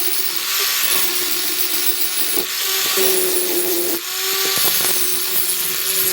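An electric power tool running steadily on the work, with a rasping sound that swells and eases every second or two as it is pressed on and eased off.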